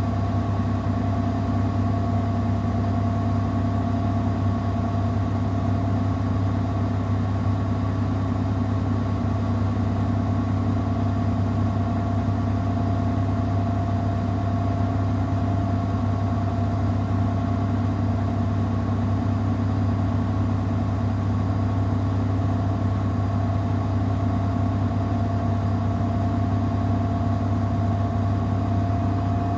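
Samsung WW70T4020EE front-loading washing machine spinning a load of clothes at a steady speed. It gives a steady low hum with a motor whine that holds one pitch.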